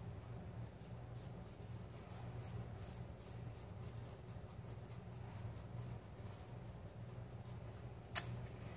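Graphite pencil scratching on sketch-pad paper in quick, short hatching strokes, about four a second, laying down contour-line shading, over a steady low hum. A single sharp tap near the end.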